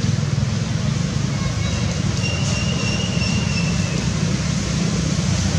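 Steady low rumble with an even hiss of outdoor background noise. A faint thin high tone sounds for about a second and a half in the middle.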